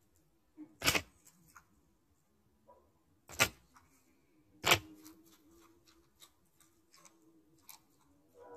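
Hens pecking at a leaf held against the camera, their beaks landing in sharp taps: three loud ones about a second, three and a half and nearly five seconds in, with many lighter pecks between.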